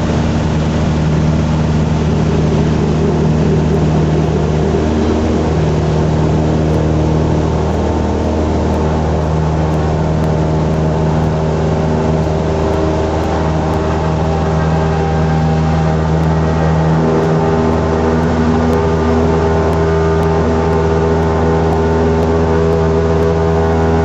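Cessna 172M's four-cylinder Lycoming O-320 engine and propeller droning steadily at low power, heard from inside the cabin as the plane rolls on the ground.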